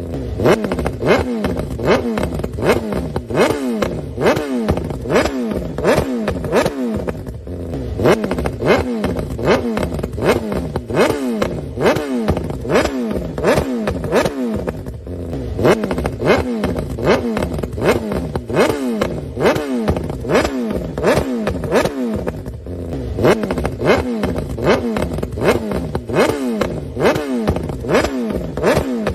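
Straight-piped inline-four sport bike engine revved in quick, repeated throttle blips, the pitch jumping up and falling back again more than once a second.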